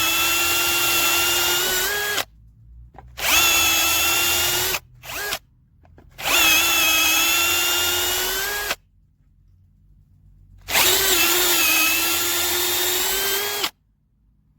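Bosch UniversalImpact 18V-60 cordless drill motor running in four runs of a few seconds each, with short silent gaps and one brief blip in between. Each run holds a steady whine, its pitch dipping slightly as it starts.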